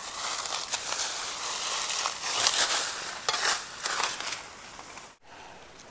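Dry fallen bamboo leaves crunching and crackling as someone moves and crouches in the leaf litter, with louder bursts a couple of seconds in; the sound breaks off suddenly about five seconds in.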